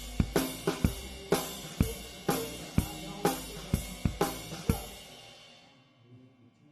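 Drum kit in a live band, playing strong accented hits about twice a second with cymbal crashes, then stopping about five seconds in and ringing away to quiet.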